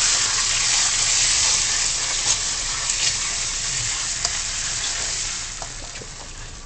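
Chilli sauce sizzling hard in hot oil and frying garlic in a wok as it lands in the pan, stirred with a spatula that ticks faintly against the wok now and then. The sizzle is loudest at first and dies down over the last couple of seconds.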